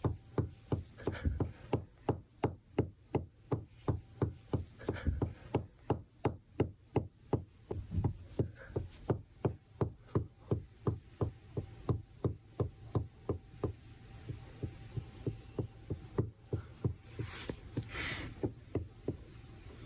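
A hand patting a miniature dachshund's body in a steady rhythm, about two and a half soft thumps a second, with rustling of fur and bedding near the end.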